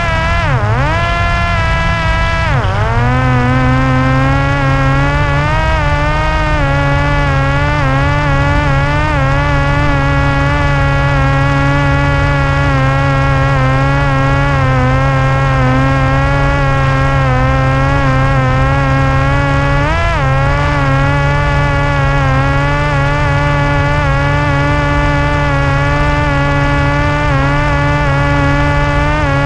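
Parrot Disco drone's electric motor and propeller buzzing steadily in flight. Its pitch dips sharply and recovers twice in the first few seconds and once more about twenty seconds in.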